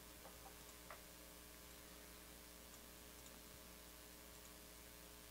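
Near silence: faint steady hiss and hum of room tone, with a couple of faint clicks in the first second.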